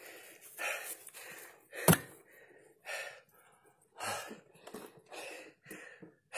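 A man breathing hard in short gasping breaths, about two a second, with one sharp knock about two seconds in.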